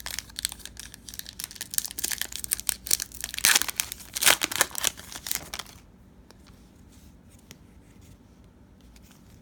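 A trading card pack's wrapper being torn open and crinkled, loudest about three and a half to four and a half seconds in. It stops about six seconds in, leaving only faint handling noises.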